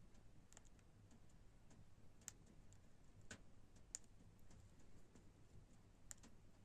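Faint, sharp clicks and taps at irregular intervals, about half a dozen, over near silence.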